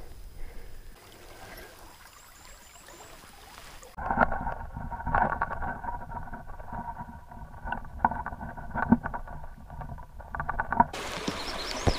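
Muffled underwater sound of a brook heard through a submerged camera: a low rushing with many small clicks and knocks, starting abruptly about four seconds in and giving way near the end to the open-air sound of the stream. Before it, only a faint outdoor background.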